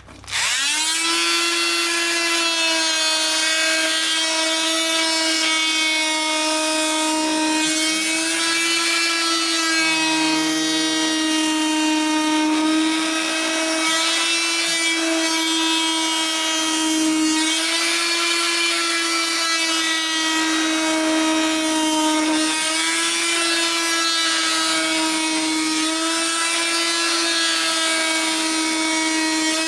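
Oscillating multi-tool fitted with a carpet-knife blade tack-welded on at right angles, starting up and cutting through a car tyre's rubber: a steady buzzing hum whose pitch dips briefly a few times.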